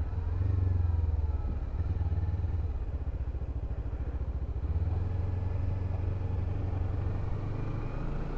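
Kawasaki Ninja 300 motorcycle engine running under way, its note easing off in the first couple of seconds and climbing again near the end, with a steady low wind rumble on the helmet-mounted microphone.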